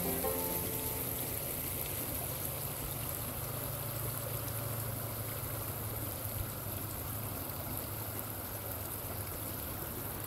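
Shallow creek water running over rocks, a steady trickling flow.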